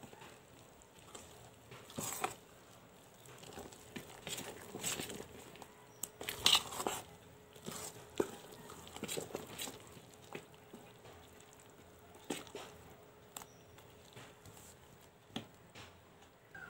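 Spoon stirring thick batter in a steel bowl: irregular scrapes and clicks against the bowl's side, the loudest about six and a half seconds in.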